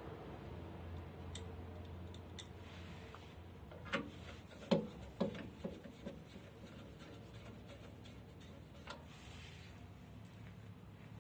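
Scattered light clicks and knocks of tools and parts being handled during work on an oil burner, clustered about four to six seconds in, over a faint steady low hum.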